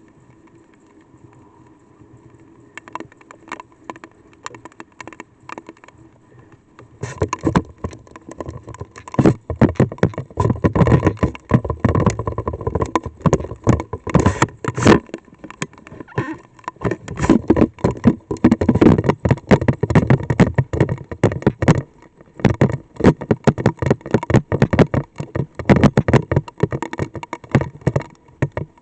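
Light rain drumming on a storm-chasing probe: scattered single drops at first, then a dense, irregular patter of raindrop hits from about a quarter of the way in.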